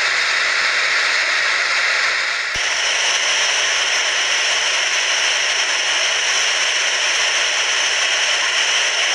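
Steady rushing hiss of flowing floodwater. About two and a half seconds in there is a brief click and the hiss suddenly changes tone.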